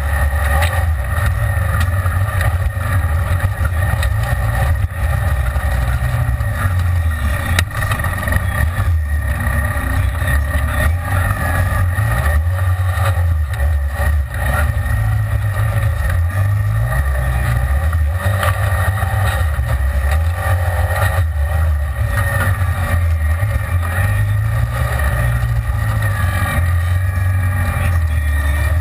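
Side-by-side UTV engine running under way, heard from inside the cab: a loud low drone that shifts up and down in pitch a few times as the throttle changes, with one sharp knock about eight seconds in.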